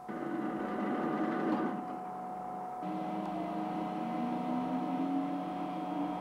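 The electric drive system of a 280-tonne rotatable shortwave antenna is switched on and powering up. It gives a steady machine hum with several held tones that changes about three seconds in, and then a tone slowly rises in pitch.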